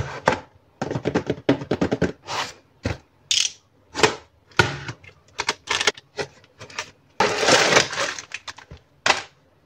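Plastic model kit parts being handled: quick runs of small clicks and clatters of hard plastic, with a rustle lasting about a second around seven seconds in.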